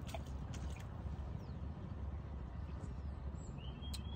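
Spinning reel on a feeder rod being wound in as a small roach is played, a few faint clicks in the first second over a steady low rumble. A thin high whistle near the end.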